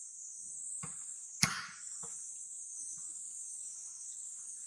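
Steady high-pitched drone of insects. A single sharp click about a second and a half in, with a couple of faint knocks.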